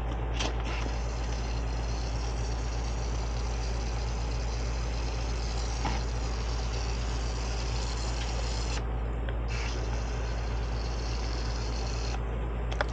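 Coil cleaner being sprayed in two long hissing spurts, the first about eight seconds and the second about three, over a steady low hum.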